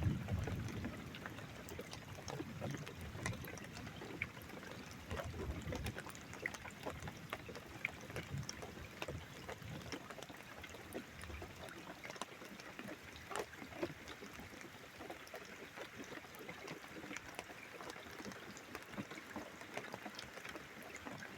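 Rain during a thunderstorm: steady trickling and pouring water with many small scattered drip ticks, and faint low rumbles of distant thunder now and then.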